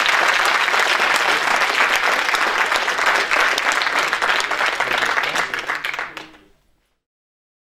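Audience applauding in an auditorium; the applause fades out about six seconds in, leaving silence.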